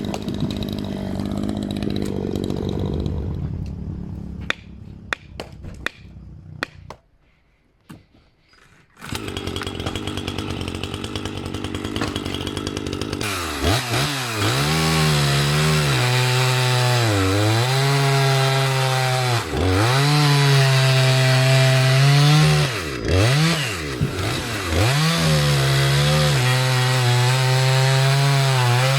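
Maruyama MCV5100S two-stroke chainsaw. A quieter stretch with scattered clicks and a brief near-silence comes first, and about halfway through the saw runs at high revs. Its engine pitch dips and recovers again and again as it loads and unloads in the cut.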